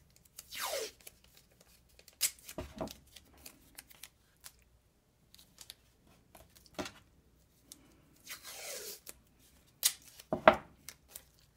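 Blue painter's tape pulled off the roll in two short, rasping rips that fall in pitch, about half a second in and again near nine seconds, with small clicks and rustles as strips are torn and pressed onto the paper. A few sharp knocks near the end are the loudest sounds.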